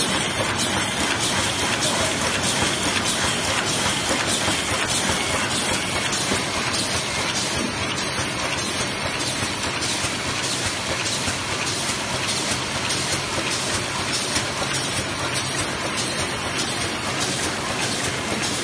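Eraser packaging machine running steadily: a continuous dense mechanical clatter of fast, closely spaced ticks.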